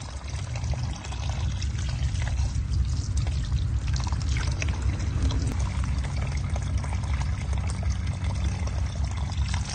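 Water pouring in a steady stream from a bamboo spout and splashing as ingredients are rinsed under it, with a low rumble underneath.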